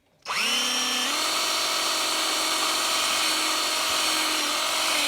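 Small electric drill spinning up and running with a steady high whine that steps up in pitch about a second in, then winding down near the end. It is drilling out the rivet of a die-cast toy car to take it apart.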